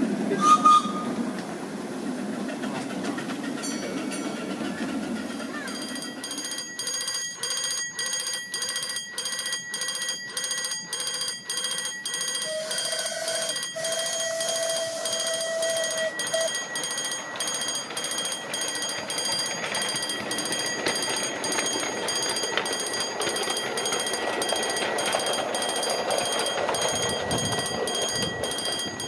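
Electronic level-crossing warning alarm at a miniature railway's road crossing, beeping steadily about twice a second for some twenty seconds as a train crosses. A separate steady tone sounds for a few seconds midway, and a brief loud sound comes just at the start.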